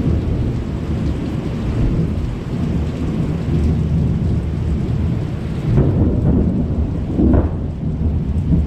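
Thunder rumbling continuously with rain falling, a long low rolling rumble that swells a little about six and seven seconds in.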